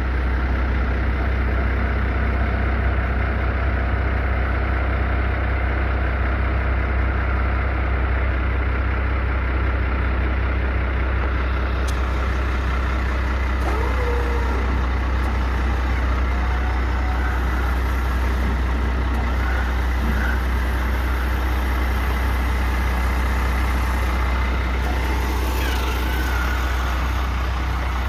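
International 5.9 L six-cylinder diesel engine of a 1992 International 4700 dump truck idling steadily, a constant low drone.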